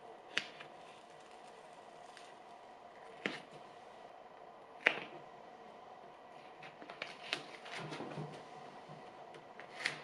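Green painter's tape being picked at and peeled off a painted wooden dresser corner by hand: a few short sharp rips or clicks about a second in, at about three seconds and near five seconds, then a run of small crackles and rubbing near the end, over a faint steady room hum.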